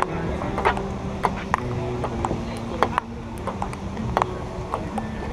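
Table tennis ball in a rally, clicking sharply off the paddles and the table about every half second.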